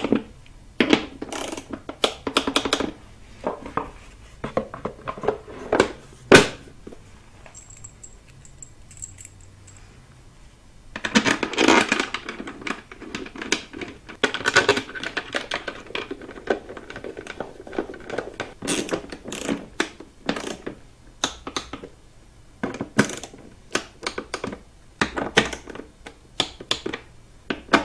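Hand-tool work on an engine's timing covers: rapid metallic clicking of a ratchet running in the cover bolts, with knocks and rattles from the plastic timing covers and bolts being handled. There is a sharp loud click about six seconds in and a busy stretch of rattling about eleven to fifteen seconds in.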